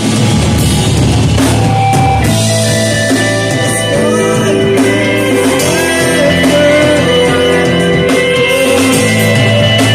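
Rock music with guitar, drums and a singing voice.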